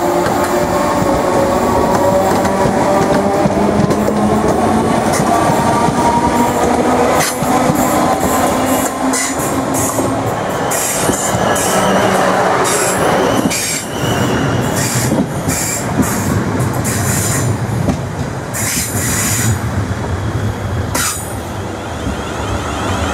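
Electric multiple-unit trains passing a platform on curved track. Over the first few seconds a motor whine rises slightly in pitch. From about seven seconds in, a South West Trains Class 444 runs by with many sharp wheel clicks over the rail joints, high wheel squeal and a low rumble.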